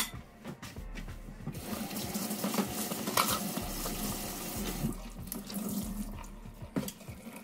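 Kitchen tap running into a sink as it is rinsed clean, with water splashing on the basin, loudest in the middle, and a few light knocks.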